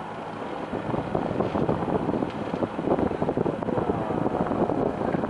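Wind buffeting the microphone, mixed with the running diesel engine of a small wooden fishing boat at speed, slowly growing louder.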